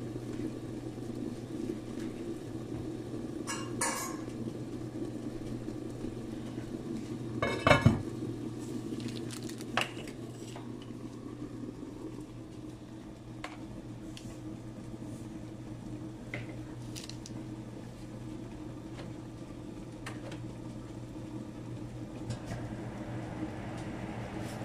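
Heavy enamelled cast-iron pot lids and pots clanking on the hob a few times, the loudest clatter about eight seconds in, then a few lighter knocks, over a steady low hum.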